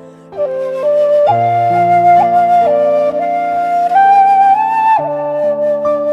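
Instrumental music: a slow flute-like melody over sustained chords.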